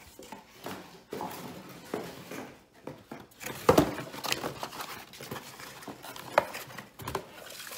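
Cardboard shipping box and paper packing being handled: flaps rustling and scraping, with scattered knocks, the loudest a little under four seconds in.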